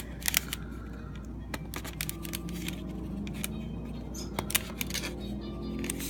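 Scattered small clicks and taps from tools and fingers working on an iPhone 5 as its screen is pried open.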